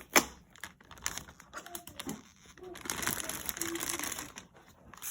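Plastic bag crinkling and rustling as it is handled, with scattered clicks and knocks, and a denser stretch of rustling about three seconds in.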